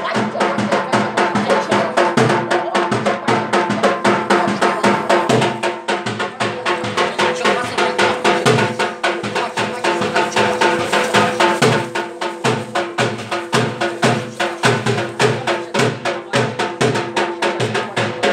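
Devotional folk music with fast, steady drumming, about five strokes a second, over a held drone.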